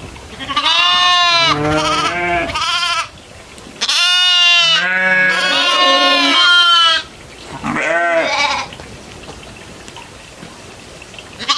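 Goats bleating: a series of loud, wavering calls with short pauses between them, one of them long in the middle.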